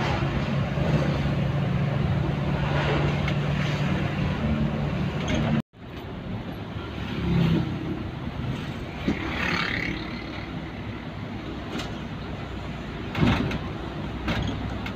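A road vehicle's engine running steadily with road noise. The sound cuts out abruptly about six seconds in, then resumes as rougher road noise with a few brief knocks.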